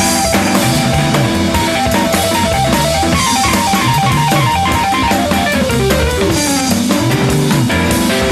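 Background rock song, instrumental section: electric guitar over bass and drum kit, with a guitar line running down in pitch near the end.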